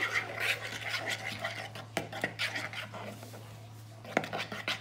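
Spoon stirring slime mixture in a plastic mixing bowl: repeated scraping and clicking of the spoon against the bowl's sides and bottom. It eases off about three seconds in, then picks up again with a run of clicks near the end.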